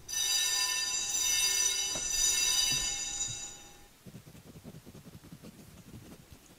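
Electric fire alarm bell ringing continuously with a steady high metallic tone, then dying away after about four seconds.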